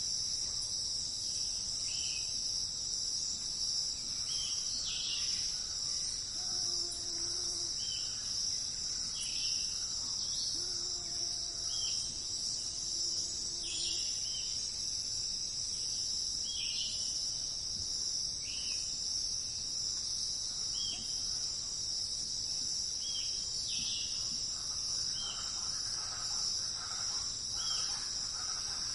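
Insects droning steadily at a high pitch, with a bird repeating a short falling chirp every second or two. Twice, about a quarter and about two fifths of the way in, a low steady note sounds briefly.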